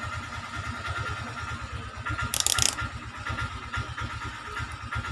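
A small engine runs steadily in the background with an even, rapid low throb. A short high buzz sounds once, about two seconds in, for under half a second.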